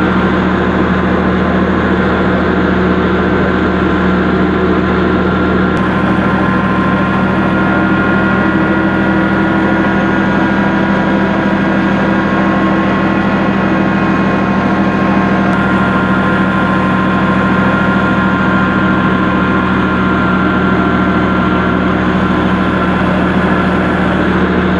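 Village wheat grinding mill running steadily under power: a loud, constant hum with a few steady whining tones above it.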